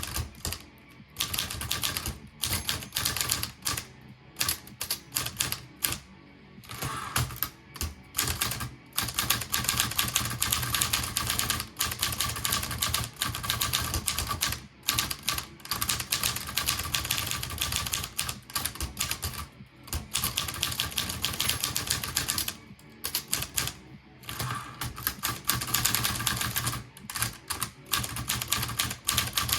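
Olivetti Lettera 22 manual portable typewriter being typed on: rapid runs of key and typebar strikes with short pauses between runs.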